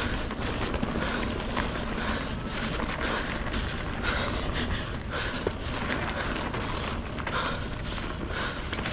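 Wind buffeting the microphone, with road noise from a bicycle on the move and a few faint rattles.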